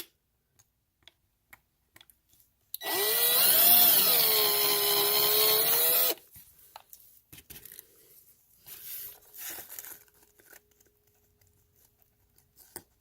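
Small power drill running for about three seconds as it drills out the rivet of a diecast toy car. Its whine sags and recovers in pitch as the bit bites. Light handling clicks come before and after.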